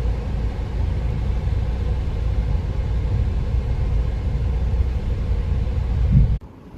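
Steady low rumble that cuts off suddenly about six seconds in.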